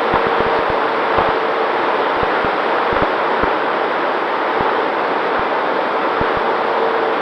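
Wind rushing over the onboard camera of an electric RC P-51D Mustang in flight: a loud steady hiss with irregular low buffeting, and a faint steady motor whine underneath.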